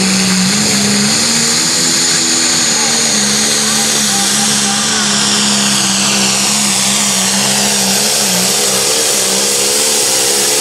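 Turbocharged diesel engine of a John Deere Limited Pro Stock pulling tractor held at full throttle under load while pulling the sled, a steady engine note with a high turbo whine above it that falls slowly.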